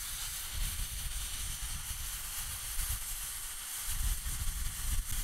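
Air hissing steadily out of a pickup truck's off-road tyre through a deflator on the valve stem: the tyre being aired down for rough, unpaved tracks.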